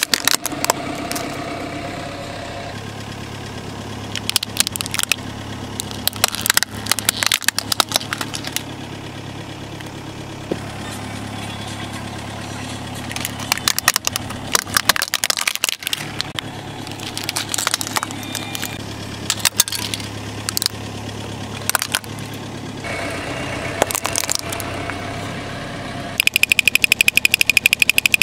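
A car engine idling steadily while its tyre rolls over plastic toys, crushing them with clusters of sharp cracks and snaps. Near the end, wind-up toy drummers start beating their small drums in a fast, even rattle.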